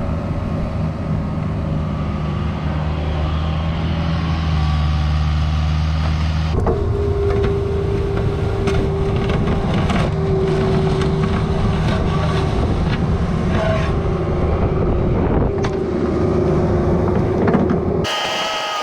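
Cat 304 mini excavator's diesel engine running steadily. After a cut a few seconds in, a steady hydraulic-type whine comes in, with occasional knocks as the machine works. Near the end the sound switches abruptly to a different one with higher, wavering tones.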